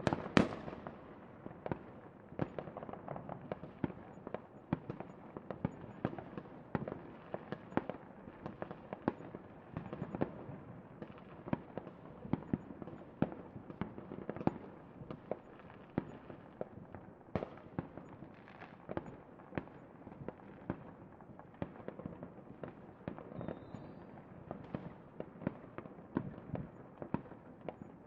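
Fireworks going off in a dense, irregular run of sharp cracks and pops, with one loud bang right at the start.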